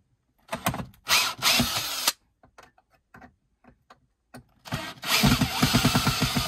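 Cordless drill backing out screws that hold a battery tray down, in two runs: one short run about half a second in, then a longer run from near the middle with a fast, even rattle. A few small clicks fall between the runs.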